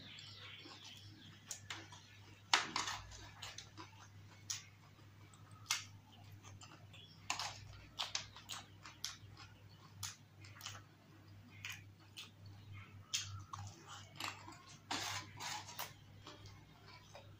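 Close-miked eating sounds of yogurt-topped dahi puri and samosa chaat being chewed, with irregular wet mouth clicks and smacks. Now and then a plastic spoon clicks and scrapes against a metal tray as food is scooped up, over a faint steady low hum.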